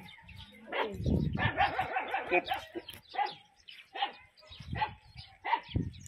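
A dog barking repeatedly, a run of short barks that comes thickest a little over a second in and then continues more sparsely.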